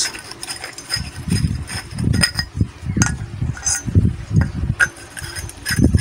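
Steel burner chamber and pipe fittings being handled and fitted together: irregular dull thumps with a few sharp metallic clinks.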